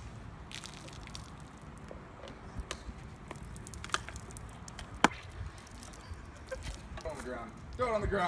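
Quiet outdoor background with a few scattered light clicks and taps, then a voice speaking briefly near the end.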